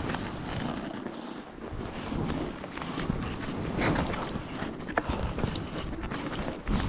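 Skis running through deep powder snow, a rushing hiss that swells and fades unevenly, with wind buffeting the microphone. A sharp tick about five seconds in.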